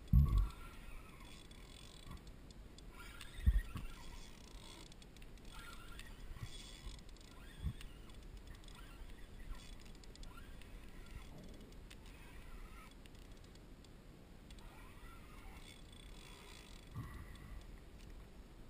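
A few dull knocks over a quiet background of faint, light patter. The loudest knocks come right at the start and about three and a half seconds in.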